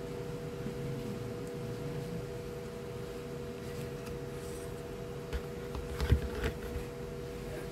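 A printed circuit board being handled and turned over, giving a few light clicks and knocks; the loudest comes about six seconds in. A steady tone sounds underneath.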